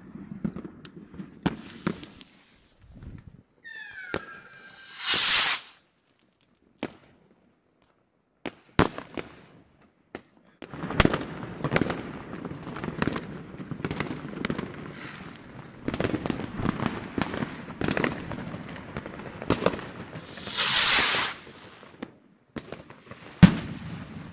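Firework rockets launching: a short falling whistle and a loud rushing whoosh about five seconds in, and another whoosh near 21 seconds, amid scattered cracks and dense crackling bangs of fireworks. A sharp bang comes near the end, and there is a few-second silent gap in the middle.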